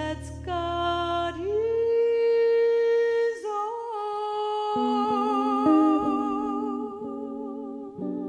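A female jazz singer holds long wordless notes with vibrato over guitar and bass, the closing notes of the song. A low bass note stops about two seconds in, and from about halfway the guitar plucks a few chords beneath the held note.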